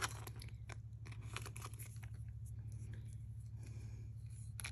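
Faint scattered clicks and light rustling of jewelry and its card being handled, over a steady low hum.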